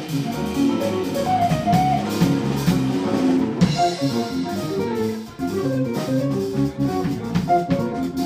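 Jazz-rock band playing live: electric guitar, electric bass, drum kit with cymbals, and keyboard, with a brief dip in loudness about five seconds in.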